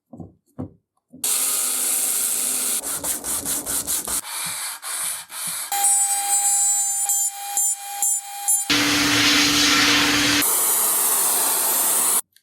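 Restoration tool work on a metal iron, cut together from short clips: a few light knocks, then rasping scrubbing or sanding strokes, then power tools running with a steady whine. Each section stops abruptly and the next begins with a different sound.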